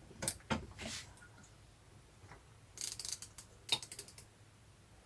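Hand socket ratchet and metal tools clicking and clinking in short scattered bursts on the engine's sprocket nut. The nut is not coming loose by hand.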